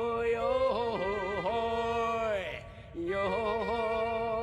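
Music: a held, wavering melody line with a long downward slide about two and a half seconds in, a brief dip, then the tune picks up again.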